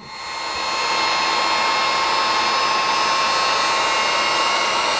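Wagner Furno 500 heat gun switched on, its fan spinning up over the first second and then running steadily with a whine over the rush of hot air, as it shrinks heat-shrink tubing over a soldered wire joint.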